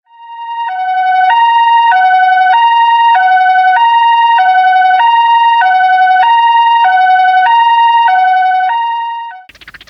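Two-tone ambulance siren sound effect in the Japanese style, switching back and forth between a high and a low note about every half second. It fades in at the start and fades out near the end.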